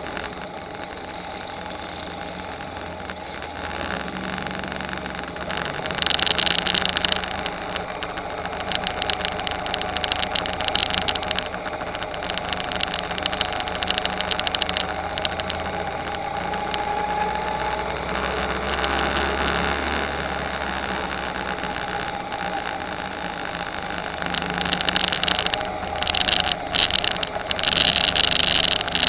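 Rental go-kart engine running under throttle, heard from the kart itself, its pitch rising and falling with speed through the corners. Patches of harsh crackling noise come and go, loudest near the end.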